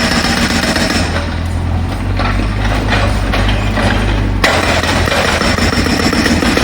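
Jackhammer breaking up pavement with a loud, rapid rattle. It pauses about a second in, leaving a low engine drone, and starts again suddenly about four and a half seconds in.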